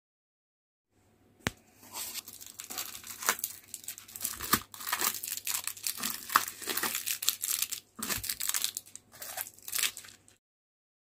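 Clear plastic wrapping crinkling and crackling as a handful of small plastic-wrapped pieces is handled, after a sharp click about a second and a half in. The crinkling stops abruptly near the end.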